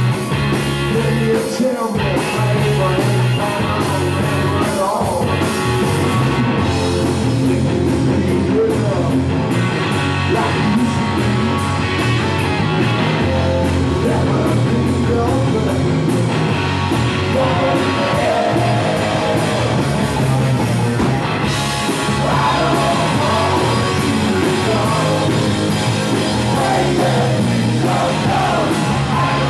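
Rock band playing live: electric guitars, bass guitar and drums, with a male singer's vocal coming in and out over them.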